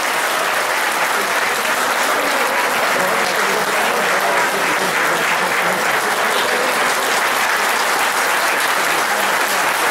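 Audience applauding steadily, a dense, continuous clapping, with a few voices faintly underneath.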